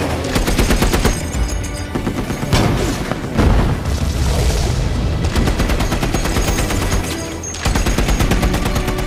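Battle sound effects: rapid automatic gunfire, with a heavy explosion a little over three seconds in. The firing eases briefly and then resumes near the end.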